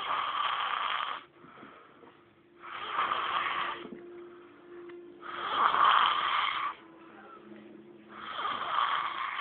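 A sleeping woman snoring in a slow rhythm: four snores about three seconds apart, each just over a second long, the loudest about six seconds in.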